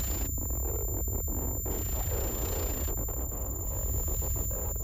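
Experimental electronic noise improvisation: a constant low rumble under crackles and clicks, with bands of hiss that cut in and out abruptly and a thin steady high whine.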